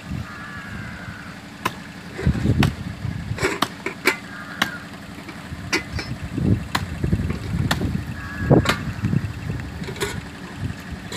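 Outdoor wind buffeting the microphone in uneven gusts, with a dozen or so sharp clicks scattered through.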